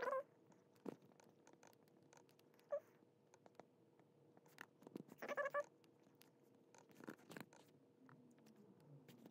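Scattered quiet computer keyboard and mouse clicks during code editing, with a brief high-pitched call at the very start, a faint one a little under three seconds in, and a clearer one a little past five seconds.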